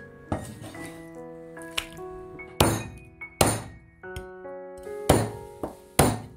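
Cleaver chopping through goose meat and bone on a thick wooden stump chopping block: about six heavy chops, irregularly spaced and getting harder after the first two. Background music plays underneath.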